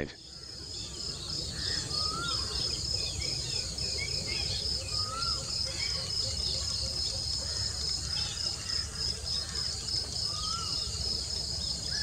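Grassland ambience: insects trilling in a steady high pulsing drone, with a bird giving a short rising-and-falling call three times, about two, five and ten seconds in, a few fainter chirps, and a low steady rumble underneath.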